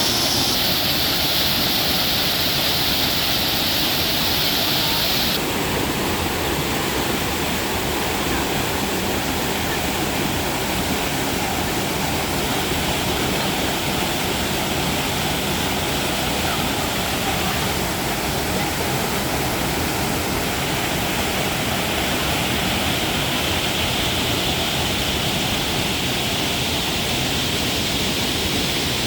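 Small waterfall on a river, water rushing steadily.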